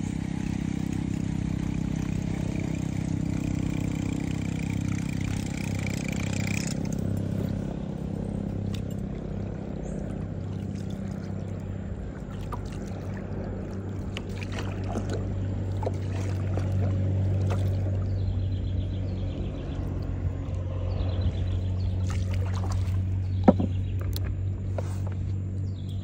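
A boat motor runs with a steady low hum, and water rushes past the hull while the boat moves. The rushing stops about seven seconds in, leaving the motor's hum with scattered light clicks from the casting rod and reel, and one sharp knock near the end.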